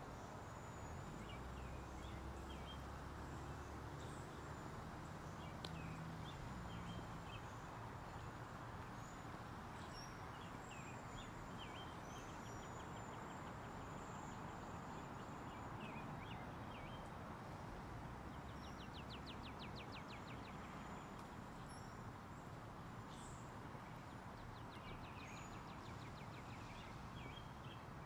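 Outdoor park ambience: a steady wash of distant background noise with scattered short bird chirps and calls. Twice a bird gives a rapid trill of evenly repeated notes, about two-thirds of the way in and again near the end. A low hum is stronger in the first few seconds.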